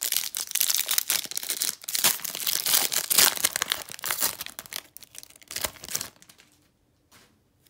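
Foil wrapper of a 2014 Panini Select football card pack crinkling and tearing as it is ripped open by hand, a dense run of crackles that stops about six seconds in.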